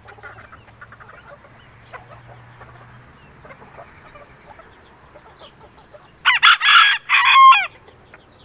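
Chickens clucking softly, then about six seconds in a rooster crows loudly once, a call of about a second and a half in a few parts that falls away at the end.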